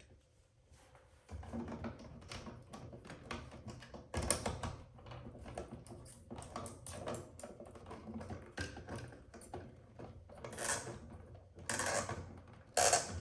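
Irregular small clicks, ticks and scrapes of hands working electrical wiring: copper ground wires being twisted together and a plastic wire nut screwed on, with a few louder rustling scrapes near the end.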